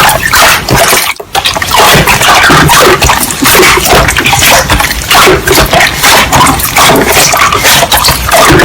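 Slime being squeezed and pressed by hand: a dense run of quick clicks and pops, with a brief let-up about a second in.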